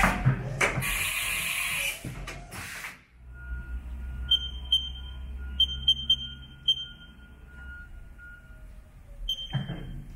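Short high electronic beeps from a Haas CNC mill's control keypad as keys are pressed, seven in all, several in quick succession and one near the end, over a low steady hum. The first few seconds hold a loud hiss with knocks that cuts off abruptly about three seconds in.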